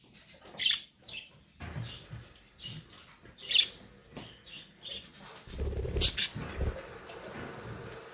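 Pet birds chirping in short, scattered calls, with a few knocks and rustling about six seconds in.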